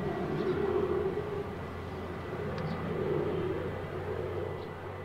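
Grob G120TP's single Rolls-Royce 250 turboprop engine and propeller at takeoff power as the aircraft lifts off and climbs away: a steady drone that slowly fades.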